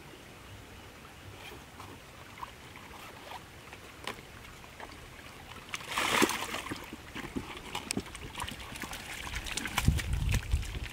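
Water splashing out as a collapsible fish bucket of live catfish is tipped over, in one sudden burst about six seconds in. Then the catfish flop and slap on the wet dirt, with a few scattered knocks and heavy low thuds near the end.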